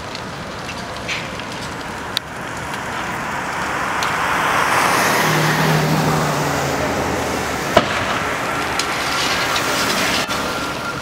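A car passing on the road, its engine and tyre noise swelling and fading, over the steady noise of a building fire burning, with two sharp pops, one about two seconds in and another near eight seconds.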